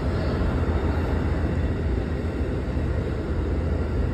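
Amtrak Cardinal passenger train rolling slowly through the station: a steady low rumble with no distinct knocks or horn.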